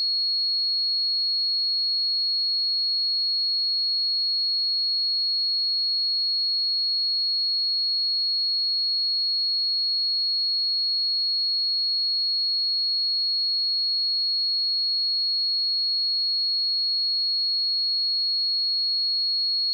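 A pure 4321 Hz sine-wave test tone: a single high-pitched steady tone, unchanging in pitch and loudness.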